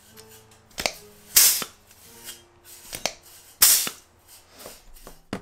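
Hand-held pneumatic rivet squeezer dimpling aluminium: twice a sharp snap as the dies close, each followed about half a second later by a hiss of exhaust air as the squeezer releases. A last sharp click comes near the end.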